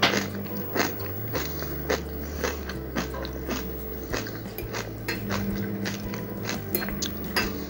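Crisp crunching of raw-fermented sauerkraut being chewed, about two crunches a second, over soft background music.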